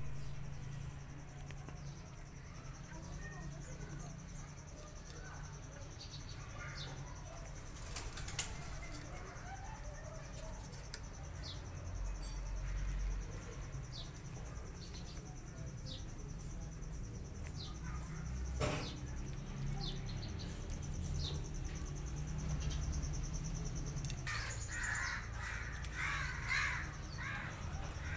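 Outdoor animal ambience: a steady high-pitched insect trill with scattered short bird chirps, and a run of louder, harsh calls over the last few seconds.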